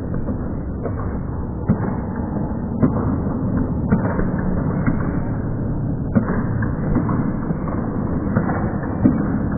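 Steady, muffled sports-hall din with a few separate sharp thuds of basketballs bouncing on the court.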